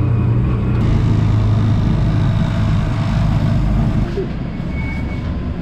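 A motorcycle taxi's engine runs steadily under way, heard from inside its sidecar cabin, with road and wind noise. About four seconds in the engine note changes and the sound drops a little.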